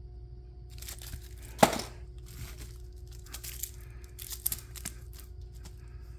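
Fireworks packaging crinkling and rustling as the items are handled and pulled from a bag, with one sharp knock about one and a half seconds in, the loudest sound, as something is set down.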